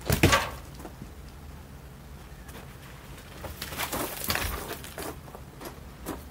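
Heavy firewood rounds being handled: a loud thud as a log round is set down on a stack of rounds just after the start, then a cluster of knocks and scrapes of wood on wood as more rounds are pulled out of a trailer about three and a half seconds in.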